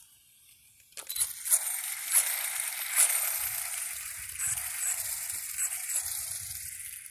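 HSP RC drift car with a 3300kv brushless motor driving on rough asphalt: a hissing rush of its tyres and drivetrain starts abruptly about a second in and rises and falls in several surges.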